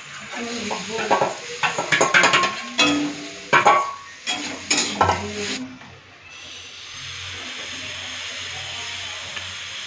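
Steel spatula clanking and scraping against a steel bowl and a steel kadai as mashed potato mixture is scraped into the pan, a quick run of sharp metal strikes. From about six seconds in, the clanking stops and a steady frying sizzle from the kadai carries on.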